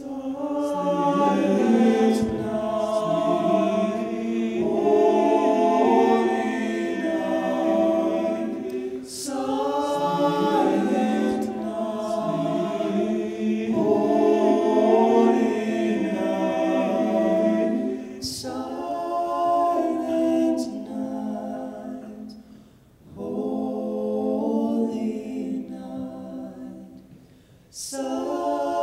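Men's a cappella vocal ensemble singing in close harmony into microphones, no instruments. The phrases break for short pauses about 9 and 18 seconds in, and the sound drops away nearly to nothing twice near the end before the voices come back in.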